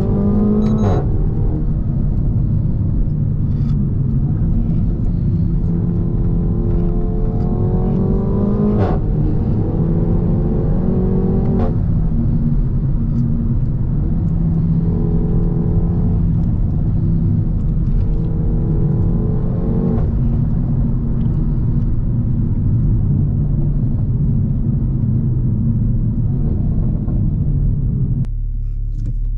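Renault Mégane IV RS 280's turbocharged 1.8-litre four-cylinder running through a catless exhaust, pulling hard through the gears. The engine note rises in several pulls, each ending in a short sharp crack at the upshift: about a second in, then around 9 and 12 seconds. It then holds a steadier note and drops off near the end.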